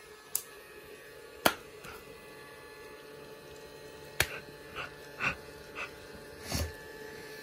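Steady hum of a small battery bubble machine's fan motor. A few sharp clicks and, in the second half, four short breathy sounds lie over it.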